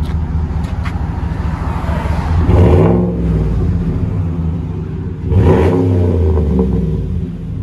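2015 GMC Sierra Denali's 6.2-litre V8 idling through a dual exhaust with a Flowmaster Super 44 muffler. It is revved twice, about two and a half seconds in and again about five seconds in, each rev rising and then dropping back to idle.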